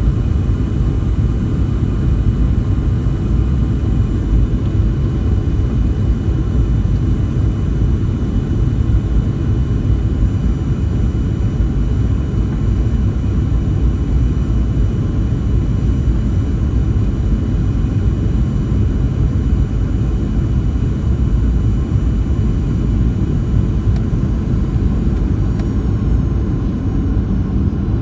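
Airliner cabin noise: a steady low rumble of engines and airframe, with faint, steady high-pitched engine whine.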